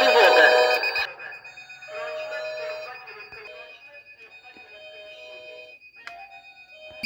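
Building fire alarm sounding: a high-pitched beep pulsing rapidly without a break. A louder pitched tone pattern over it cuts off about a second in, leaving the beep and fainter tones.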